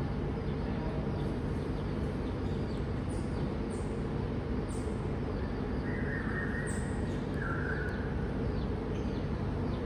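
A few brief, very high-pitched animal chirps, about four in the middle stretch, over a steady low hum.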